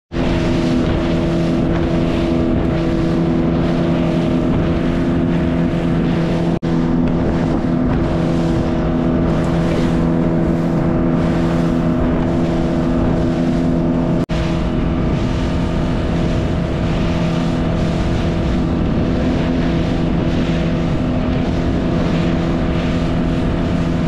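Outboard motor of a Zodiac inflatable boat running steadily under way, a constant engine drone over a broad hiss. The sound drops out for an instant twice, about six and a half and fourteen seconds in.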